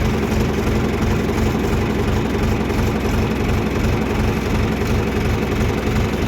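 John Deere 2355 tractor's three-cylinder diesel engine idling steadily, with an even low beat.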